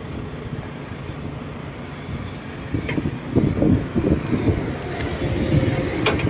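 Heavy truck pulling an empty container trailer, moving off with a steady low rumble; about three seconds in, irregular clattering and knocking from the empty trailer grows louder.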